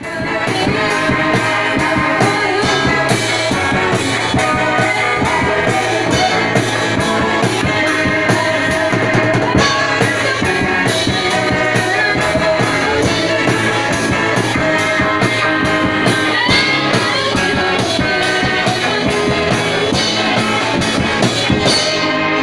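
A teenage rock band playing live in a small room: electric guitar, bass guitar and drum kit with a steady beat, and girls singing into microphones.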